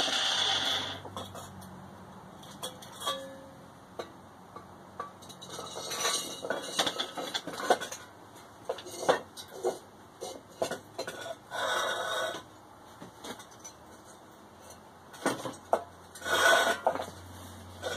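Metal parts and tools clinking, knocking and scraping as they are handled on a cluttered workbench. A loud hiss at the start cuts off about a second in.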